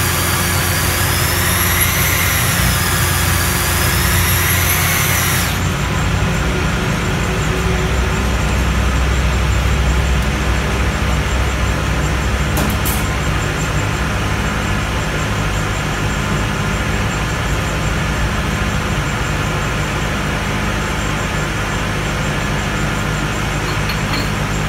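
Steady low motor drone of an electric drill rig clamped over a cylinder of a stripped engine block, running without pause. A wavering high whine sits over it for the first five seconds or so, then cuts off suddenly.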